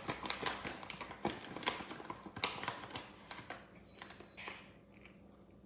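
Kitchen utensils clicking and scraping as a cup of cacao powder is scooped and tipped into a mixing bowl: a quick run of sharp taps that dies away about four and a half seconds in.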